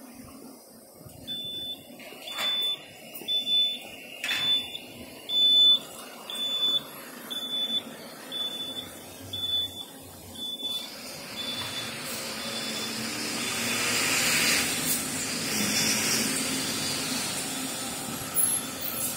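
A high-pitched electronic beeper sounding about once a second and fading away. Then a rushing street-traffic noise swells and eases off.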